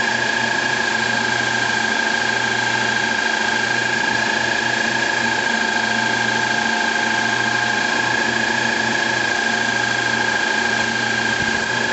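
CNC-converted Grizzly G0602 benchtop metal lathe running, a steady high whine with a lower hum that comes and goes.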